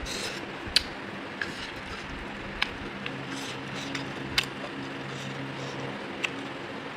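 A person eating chicken: sharp mouth smacks and clicks, five or six of them a second or two apart, over a steady background hum.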